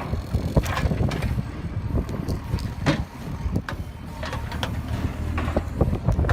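Heavy machinery at work: a low engine rumble with many irregular sharp knocks and cracks.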